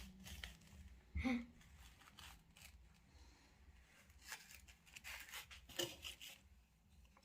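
Faint, scattered kitchen handling noises: short clicks and rustles, with one louder brief sound about a second in.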